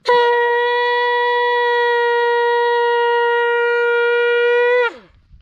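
A horn blown by mouth: one loud, steady note held for nearly five seconds, sagging in pitch and dying away near the end.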